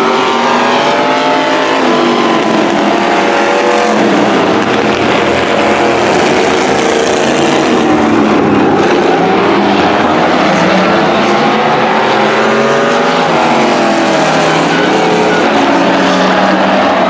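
Engines of several demolition race cars and trucks running hard around the track. Their pitches rise and fall as they accelerate and pass, over a steady wash of engine and tyre noise.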